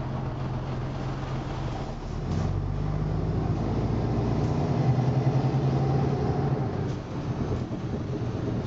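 MCW Metro-Scania single-deck bus under way, its Scania engine and running gear heard from inside the saloon. The engine note shifts about two seconds in, runs strongest around the middle and falls away about seven seconds in.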